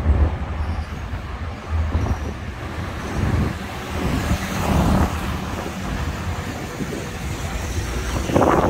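Road traffic noise: a steady low rumble of passing vehicles on a busy multi-lane road.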